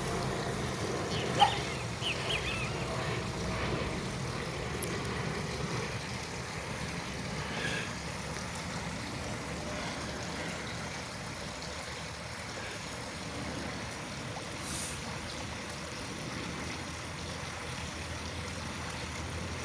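Airplane noise: a steady low rumble and hiss, with a single sharp click about a second and a half in.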